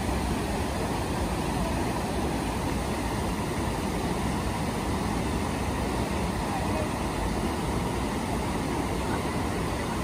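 Steady rushing of river water spilling over a low weir.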